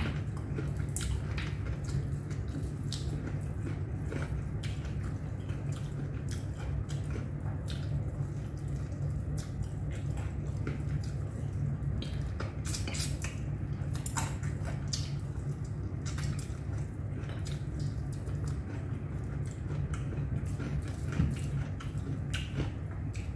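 Eating chicken biryani by hand: fingers mixing and scooping rice against a plate, with scattered small clicks and chewing sounds. A steady low hum runs underneath.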